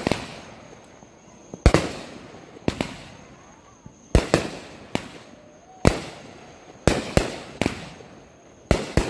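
Aerial fireworks going off in quick succession: about ten sharp bangs, roughly one a second, each fading away after it.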